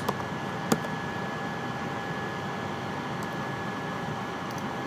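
Steady hiss of room and microphone noise with a faint high whine, and one sharp click a little under a second in.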